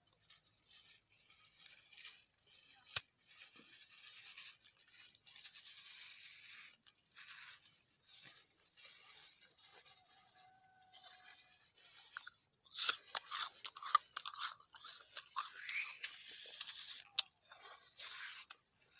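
Metal spoon scraping and scooping into crisp fruit flesh: a run of crunchy scraping with a few sharp clicks, getting louder and busier for the last several seconds.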